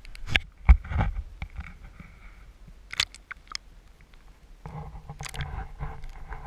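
Handling noise from a camera being set down underwater: muffled knocks and bumps on its housing over a low rumble, the loudest knock about a second in.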